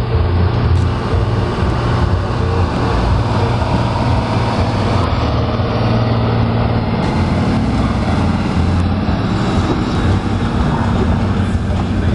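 Valmet farm tractor's diesel engine running hard and steady under heavy load as it drags a weight-transfer sled on a tractor-pulling track.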